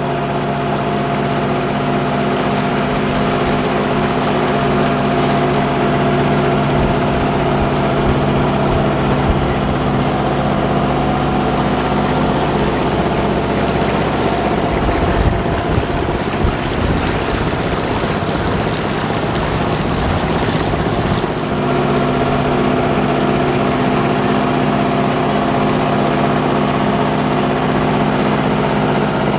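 A day launch's engine running steadily at cruising speed as the boat moves along the river, with water noise. For several seconds in the middle, wind gusting on the microphone partly covers the engine's tone.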